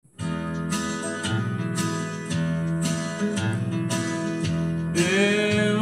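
Country-style instrumental intro with an acoustic guitar strummed in a steady rhythm over held chords. A new wavering melody line comes in about five seconds in.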